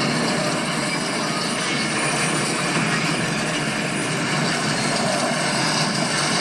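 Sustained crash sound effect: a loud, even wash of crashing noise with no separate impacts standing out.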